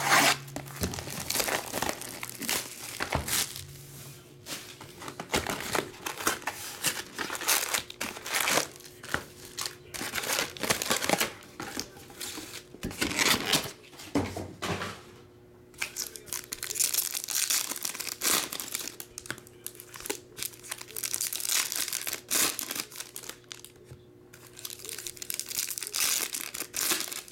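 Plastic shrink wrap crinkling as it is cut and stripped off a sealed hobby box of 2021 Bowman baseball cards, then foil card packs crinkling and tearing open by hand. The crackle comes in irregular spells, with a short lull about halfway.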